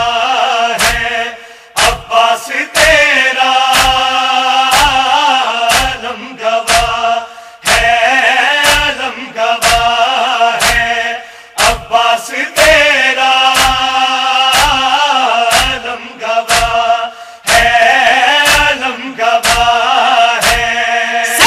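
Male voice chanting an Urdu nauha, a Shia lament, in long melodic phrases. A steady beat of thumps, about two a second, keeps time under the voice: the chest-beating (matam) that accompanies nauha recitation.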